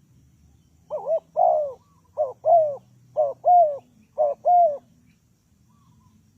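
Spotted dove cooing: four two-part coos in a row, each a short note followed by a longer note that falls at the end.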